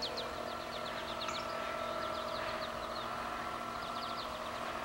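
Small electric motor of a cheap toy R/C boat whining steadily as it drives across the water. Birds chirp over it in several quick bursts.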